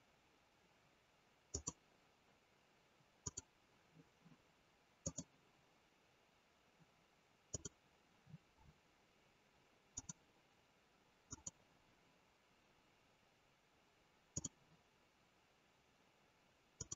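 Computer mouse clicking over near silence: about eight sharp clicks, most in quick pairs, every couple of seconds, with a few softer low knocks between them.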